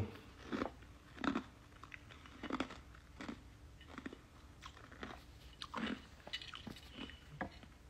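Faint, irregular crunching and clicking close to the microphone, a short crunch every half second to a second or so.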